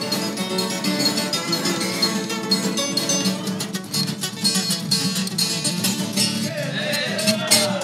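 Viola caipira, the ten-string Brazilian folk guitar, picked solo in a quick ponteado run of many rapidly plucked notes.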